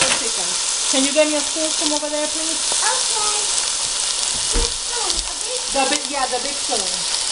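Pieces of raw chicken breast sizzling in hot oil in a pot, a steady frying hiss.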